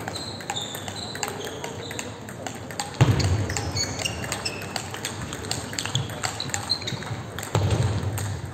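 Sports shoes squeaking on the hall's synthetic sports floor as the players walk off: short high squeaks, scattered clicks, and a heavier thump about three seconds in.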